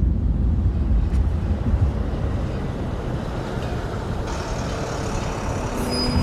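Road traffic noise: a steady, low rumble of vehicles driving on a city street.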